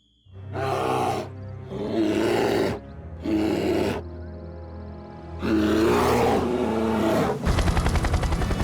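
Cartoon bear roaring four times over background music, with a fast low fluttering rumble near the end.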